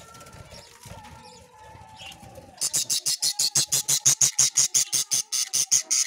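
Budgerigars in a nest box: faint thin chirps at first, then about two and a half seconds in a loud, raspy call starts up, repeated very fast, about seven times a second.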